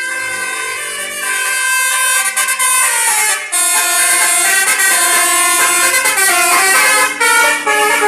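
A Basuri telolet multi-tone air horn on a tour bus plays a tune: several horn tones sound together and step from note to note, with short breaks about three and a half and seven seconds in.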